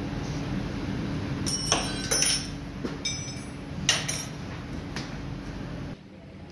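Several sharp metallic clinks with a bright ringing tone, bunched between about one and a half and four seconds in, as steel tools and parts knock against the gearbox casing. Under them runs a steady low hum that cuts off suddenly near the end.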